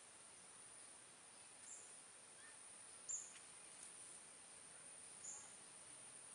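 Faint outdoor ambience: a steady high-pitched insect drone with three short high chirps, the loudest about three seconds in.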